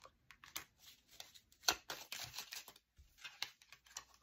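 A deck of oracle cards being shuffled by hand: quick, irregular flicks and slides of card stock, the loudest a little under two seconds in.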